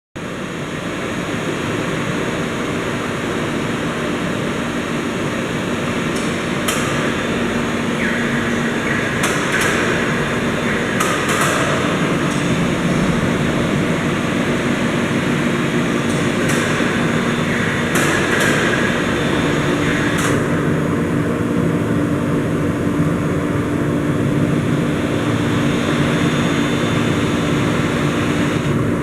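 Wotan Rapid 5 C CNC floor-type horizontal boring machine running under power: a steady mechanical hum and whir, with a series of sharp clicks and knocks through the first two-thirds.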